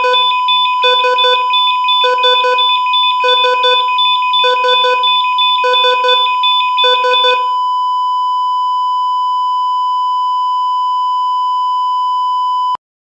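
Electronic alarm-like beeping over a steady high tone: groups of three quick beeps repeat about every second and a bit, seven times. The beeps stop about 7.5 seconds in, leaving the plain steady tone, which cuts off abruptly just before the end.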